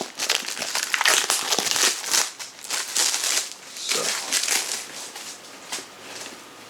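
Plastic wrapping on a CD box set being crinkled and pulled off by hand, in irregular crackling bursts that die down about five seconds in.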